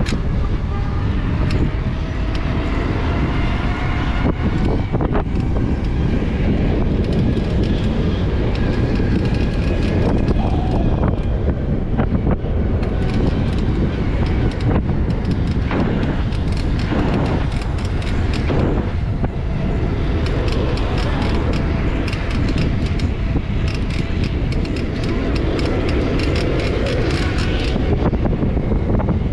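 Steady wind rushing over the microphone as a mountain bike rolls along an asphalt city street, with the hum of road traffic underneath.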